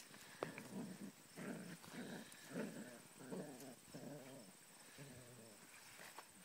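A dog vocalizing in a string of about six short, pitched growly moans, each under half a second, with a couple of sharp clicks just before them.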